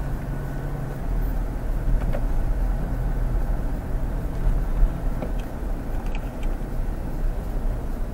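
A Toyota Fortuner's 2.8-litre 1GD-FTV four-cylinder turbo-diesel running on the move, under steady road and tyre rumble. The engine note is clearest in the first second or so, then sinks into the road noise, with a few faint clicks.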